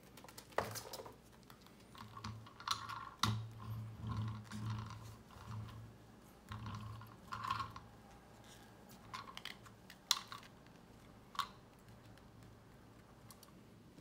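Handling noises of a toy semi truck and trailer: irregular clicks, taps and rustles as gloved hands pick the pieces up and set them down on a cloth, busiest in the first half.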